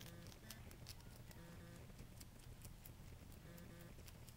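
A rabbit chewing a stalk of Chinese cabbage: a quick run of faint crunching clicks.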